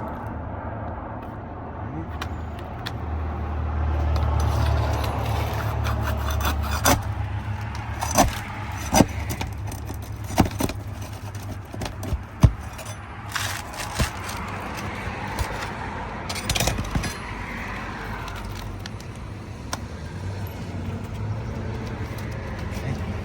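Metal tool scraping and prying under asphalt roof shingles to work nails loose, with a string of sharp clicks and knocks, the loudest about midway, over a low rumble.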